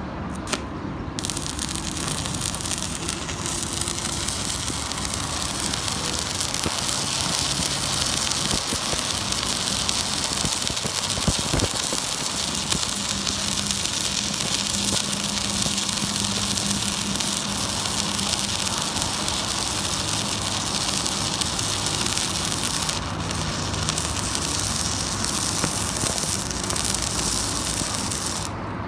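Manual metal arc (stick) welding arc from an XCORT MMA-335 inverter welder, burning steadily as the electrode is run. It strikes about a second in, dips briefly near the end and breaks off just before it.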